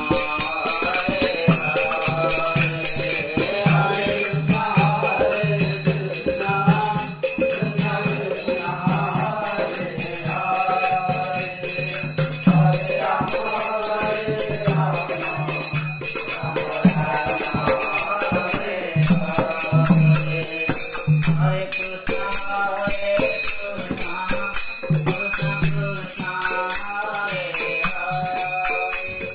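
Men chanting a devotional kirtan, the sung lines rising and falling, over a clay-bodied barrel drum (khol) beaten in a steady rhythm, with small metal cymbals jingling throughout.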